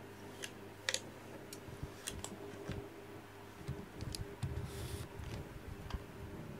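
Scattered light clicks and ticks with soft low bumps, loudest about four to five seconds in, as a cat rubs its chin and head against the edge of a wooden desk.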